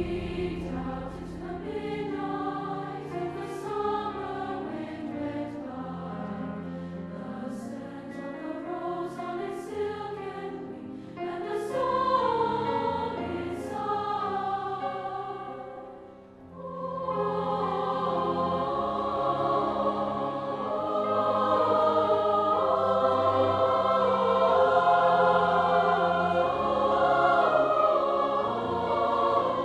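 Treble choir singing a slow choral piece, accompanied by violin and cello. The sound drops away briefly about sixteen seconds in, then the choir comes back fuller and louder.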